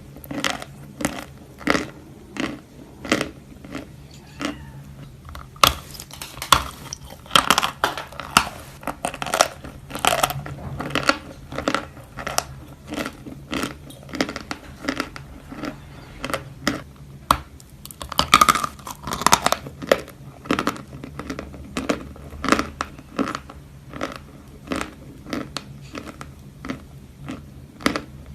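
Close-up chewing of natural edible chalk, a soft variety: a steady run of sharp crunches, about two a second, with a few denser bouts of grinding crunch.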